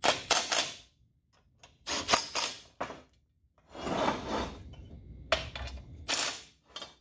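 Makita cordless impact driver hammering bolts snug into a steel roller frame, in several short rattling bursts each about a second long. About four seconds in, a longer, lower scrape as the heavy steel frame is shifted on the steel workbench.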